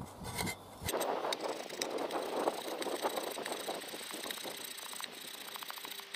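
Edge of a Cold Steel Special Forces shovel's steel blade scraping and shaving curls off a stick of wood, a continuous rasping that starts about a second in.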